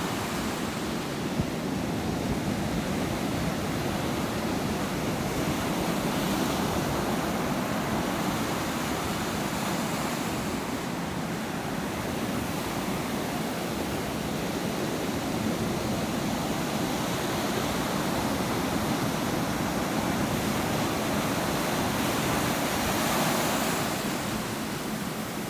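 Ocean surf: waves breaking and washing in a continuous rush that swells and ebbs gently, with a louder wave near the end.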